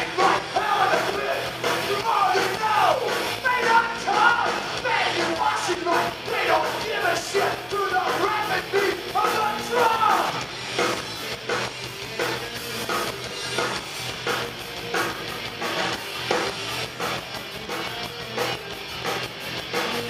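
Crossover thrash band playing live through a PA: shouted vocals over distorted electric guitars and drums. The vocals stop about halfway through and the guitars and drums carry on alone.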